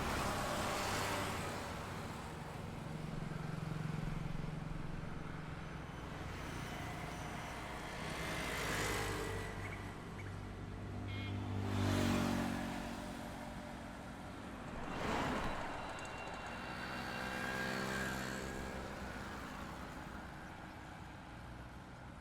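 Road traffic on a highway, with vehicles passing one after another: about six passes, each a swell of engine hum and tyre noise that rises and fades, the loudest about halfway through.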